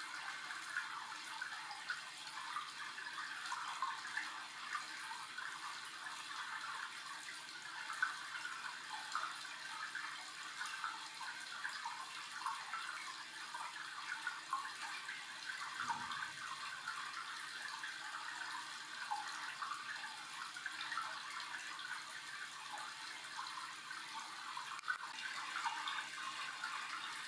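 Steady running, splashing water in the otter's pool, a busy hiss that stays even throughout. A brief low thud comes about two-thirds of the way through.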